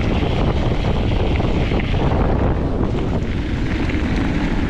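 Loud, steady wind buffeting a GoPro's microphone while a mountain e-bike is being ridden, with a low rumble underneath.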